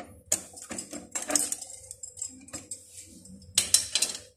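Irregular metallic clicks and taps of pliers and fingers on the adjusting bolt and nuts of a sewing-machine clutch motor's mount, as it is loosened to set the drive-belt tension. The loudest cluster of clicks comes near the end, over a faint steady hum.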